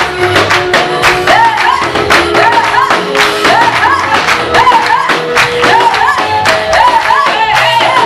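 Live Swahili gospel song: a woman sings the lead into a handheld microphone in short rising-and-falling phrases, over backing singers and a band with a steady drum beat.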